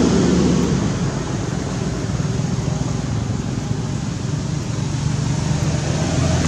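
A steady low engine drone, easing slightly in the middle and growing a little louder near the end.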